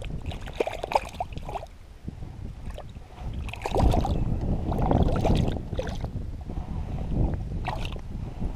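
Hooked Arctic char thrashing and splashing at the surface of shallow water while a hand reaches in to land it. The splashing is loudest about four to six seconds in, with wind on the microphone.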